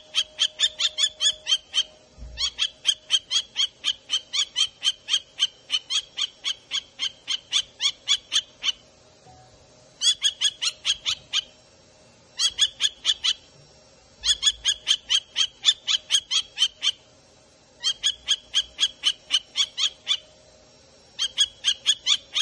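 Kestrel calling: rapid series of high-pitched calls, about four a second, in bouts lasting from one to several seconds with short pauses between.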